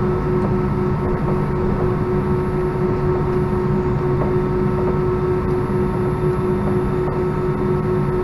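Cabin noise of an Airbus A319-131 on the ground with its IAE V2500 engines at idle: a steady rumble with a constant engine hum and whine, no change in pitch.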